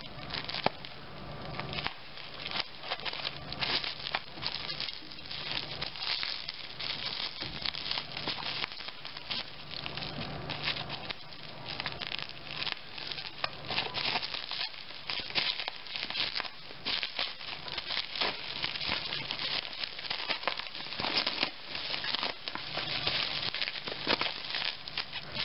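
Bubble wrap and tape-covered packaging crinkling and crackling as it is handled and pulled open by hand, a dense run of irregular crackles and rustles.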